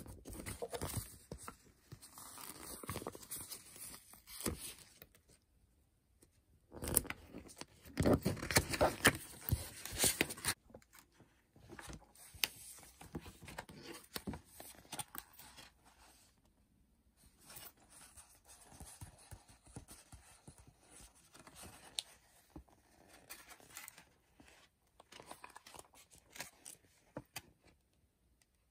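Paper handling: stickers peeled off their backing sheet and pressed down, then pages of a paper colouring book handled and turned, with irregular crinkling, rubbing and small clicks. The rustling is loudest for a few seconds about a third of the way in and softer after that.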